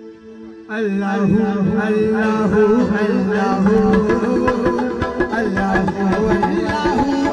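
Live naat accompaniment: a quiet held electronic-keyboard chord, then about a second in tabla and a wavering melody come in loudly and keep going.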